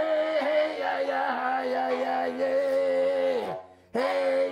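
Upright horn fiddle, a bowed stick fiddle with a brass horn bell, playing one long drawn, droning note with small shifts in pitch. The note falls away and breaks off near the end, then a new bow stroke starts.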